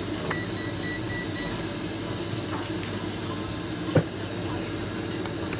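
Steady electrical hum of bench equipment running, with a faint broken high tone during the first second and a half, a few light ticks, and one sharp click about four seconds in.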